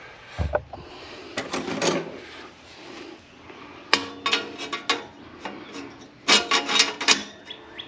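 Steel grill grate and heavy steel panels of a flat-pack grill and fire pit being handled and fitted together: metal scraping and rubbing on metal, with scattered clicks. There is a sharp click about four seconds in and a run of scraping near the end.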